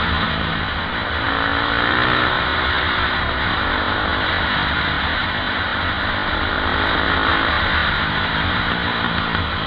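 KTM 520 EXC supermoto's single-cylinder four-stroke engine under way, its pitch rising and falling with the throttle, with heavy wind rush over the bike-mounted microphone.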